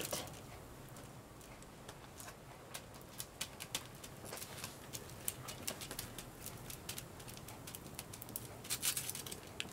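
Faint, scattered crackling of crumpled aluminum kitchen foil as fingers press it down onto a glued cardboard shape, with a brief cluster of louder crinkles near the end.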